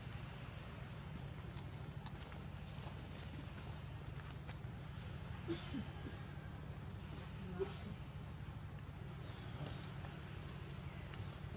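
Steady high-pitched drone of insects, held on two unchanging pitches, over a low rumble. A few short, faint sounds stand out about halfway through.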